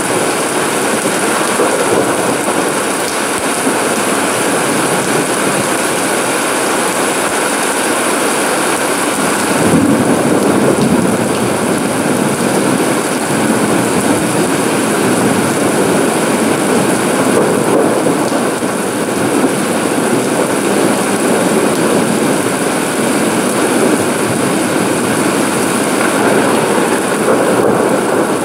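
Steady heavy rain falling on a paved yard, plants and garden pots, a continuous even hiss that swells slightly about ten seconds in.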